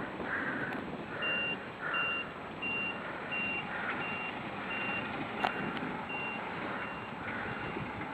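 Truck's reversing alarm beeping: a short, high, single-tone beep repeating evenly, about one and a half times a second, starting about a second in and growing fainter near the end.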